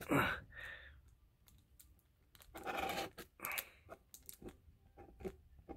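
Metal dab tool scraping rosin across parchment paper: light scrapes and a run of small, sharp clicks and taps as the tool is dragged and tapped against the paper.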